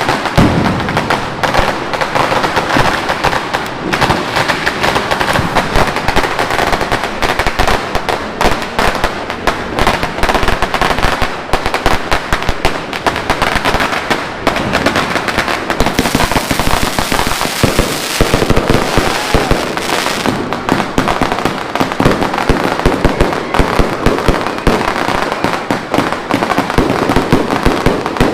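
A 188-shot GLK Fireworks Armageddon cake firing, with rapid, continuous shots and bursts. A stretch of hissing crackle comes about two-thirds of the way through.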